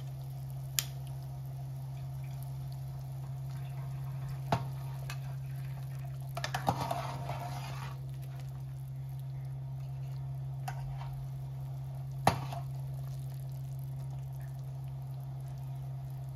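Chicken soup simmering in a stainless steel pot over a steady low hum. A metal ladle and spoon clink against the pot a few times, with a short stretch of splashing and stirring in the broth about halfway through.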